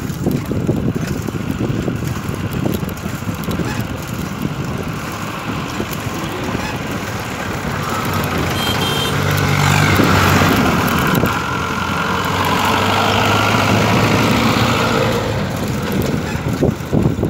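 Road traffic at close range: a motor vehicle's engine drone and tyre noise swell about halfway through and fade after a few seconds, over a constant low rumble.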